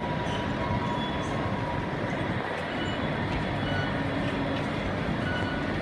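Steady rushing noise of a subway station: ceiling-mounted Mitsubishi Electric directional fans blowing, mixed with the station's rail noise. A thin steady tone sits over it for the first couple of seconds.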